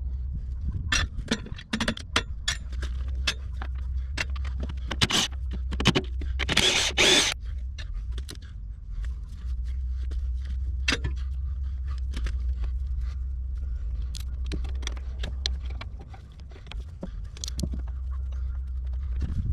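Hand tools and metal parts clinking, knocking and scraping while working underneath a Cat 312 excavator at its hydraulic hose fittings, with a longer scrape about seven seconds in, over a steady low rumble.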